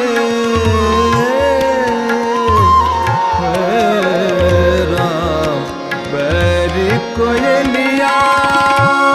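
Hindustani classical thumri performance: a male voice draws out a long, ornamented wordless line, with harmonium, tanpura drone and a slow tabla beat underneath.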